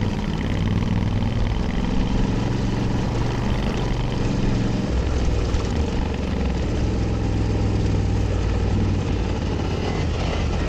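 A Honda Africa Twin's 1,084 cc parallel-twin engine running steadily as the bike rides along, over a steady rush of noise. The engine note changes about halfway through.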